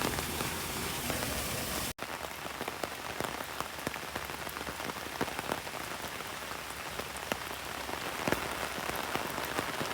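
Steady rain falling, with many individual drops ticking close by; the sound cuts out for an instant about two seconds in.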